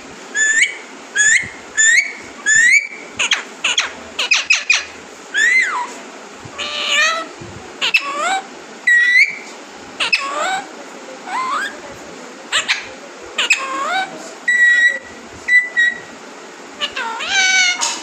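Pet green parakeet giving a long string of short whistled calls. Most are quick rising sweeps, with squeaks and clicks between them, and a few flat held whistles about three-quarters of the way through.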